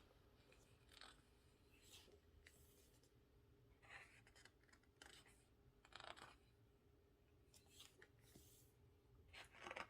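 Near silence with faint, short rustles of glossy photobook pages being handled and turned, several times over.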